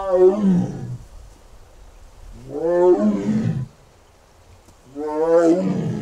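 Amur (Siberian) tiger roaring: a series of long calls, three in quick succession, each about a second long and rising then falling in pitch, roughly two and a half seconds apart.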